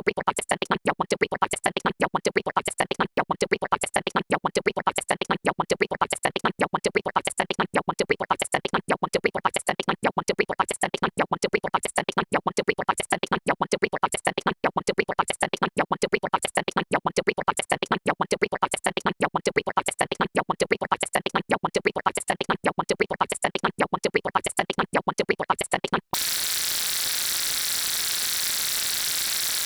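A very rapid, evenly repeated stream of short clipped sounds, counting and sound effects sped up until they run together into a stuttering electronic buzz. About 26 seconds in it cuts off suddenly into steady static hiss.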